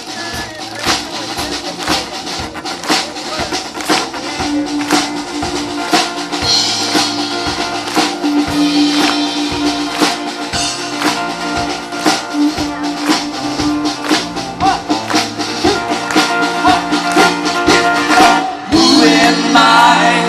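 Live band playing an instrumental introduction: a drum kit keeps a steady beat with tambourine over sustained instrumental notes.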